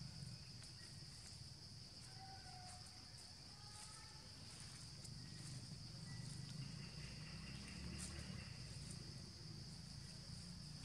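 Steady high-pitched drone of insects, with a low rumble underneath and a few faint short chirps in the middle.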